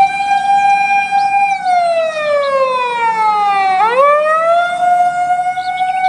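Wail siren of a Japanese fire-department van. One steady tone holds for about a second and a half, slides slowly down to a much lower pitch, then sweeps quickly back up about four seconds in and holds again.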